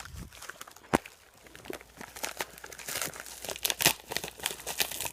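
Parcel packaging being crinkled and torn open by hand: irregular crackling with a sharp snap about a second in, getting busier in the second half.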